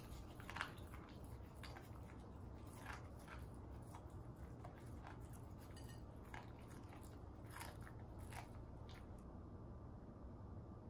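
A puppy licking and chewing at a plate, picking up the last bits of food: irregular wet smacks and small clicks of tongue and teeth against the plate, stopping about nine seconds in.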